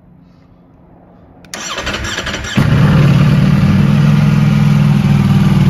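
Ducati Panigale V4S's 1100cc V4 engine on its stock exhaust being started: the starter cranks for about a second from a second and a half in, then the engine catches and settles into a loud, steady idle.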